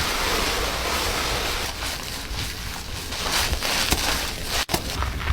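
Steady rush of spraying water, with a brief break about four and a half seconds in.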